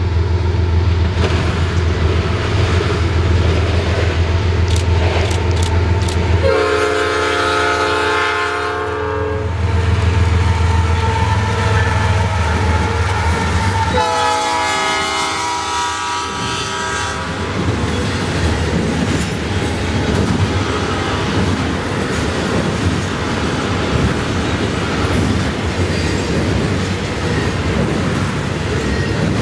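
Canadian Pacific GE ES44AC and AC4400CW diesel locomotives rumbling as they approach and pass, sounding two long horn blasts, the first about six seconds in and the second about fourteen seconds in. After that, the double-stack container cars roll by with a steady clickety-clack of wheels on rail.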